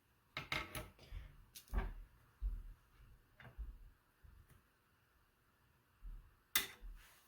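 Scattered clicks and light knocks of small parts and tools being handled on a workbench: a quick run of sharp clicks in the first two seconds, a few soft thumps, and one sharp click near the end.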